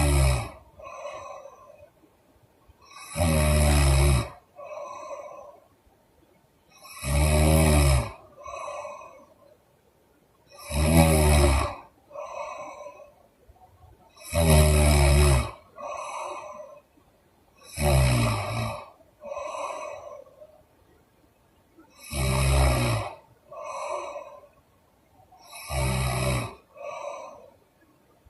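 A sleeping woman snoring in a steady rhythm, eight loud snores about every four seconds, each followed by a shorter, softer breath out.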